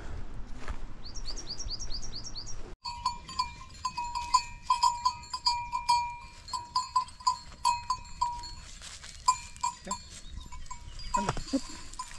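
A small bird chirps a quick run of falling notes, then after a sudden cut, goat bells clank irregularly: many strikes of one bright ringing pitch, some close together, some spaced out.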